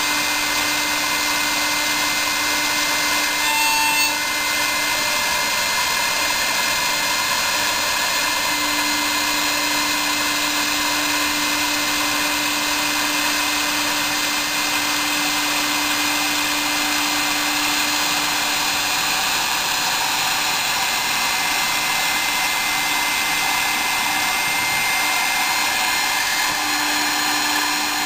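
CNC milling machine cutting aluminium with a small end mill: the spindle runs steadily under an even hiss of spray-mist coolant, with a high whine held throughout and a low hum that drops out and returns a few times as the cut goes on.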